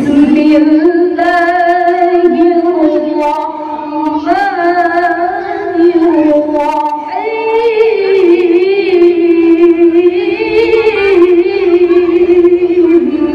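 A woman reciting the Quran in the melodic tilawah style into a microphone, holding long ornamented notes that climb to a higher pitch about seven seconds in and settle back lower near the end.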